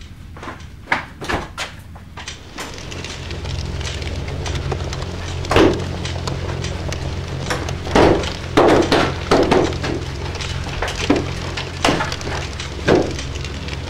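Horror-film sound design: a low steady drone that sets in about three seconds in, under a run of loud bangs and crashes that come thickest in the second half.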